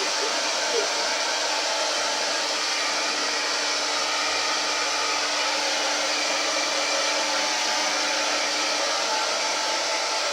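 Turbo Styler hand-held hair dryer running steadily on its warm setting: a continuous rush of blown air over a steady low hum.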